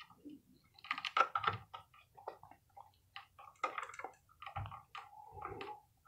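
Plastic twist-on wire nut being screwed onto copper ground wires: faint, irregular small clicks and scrapes as the wires are handled and twisted together.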